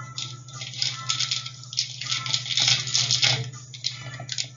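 Small plastic toy pieces and packaging being handled, giving irregular rattling and rustling that is loudest a little past the middle, over a steady low hum.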